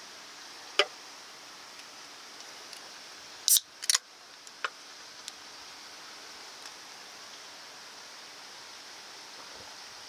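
Aluminium beer can being opened: a loud crack of the pull tab and a short fizz of escaping gas about three and a half seconds in, with a few light clicks of the can on a wooden table before and after, over a steady background hiss.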